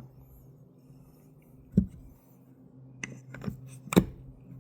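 Hands handling small metal parts of a trimmer gear head on a workbench: a dull knock a little under two seconds in, a few light clicks around three seconds, and a sharper knock at about four seconds.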